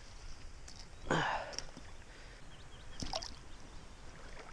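A small zander (pikeperch) splashing in the water on the end of a fishing line, with one louder splash about a second in and a sharp knock near the end.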